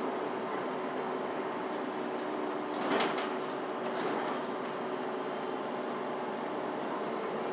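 Cabin noise inside a moving city bus: a steady mix of engine and road noise with a constant hum, and two short knocks about three and four seconds in.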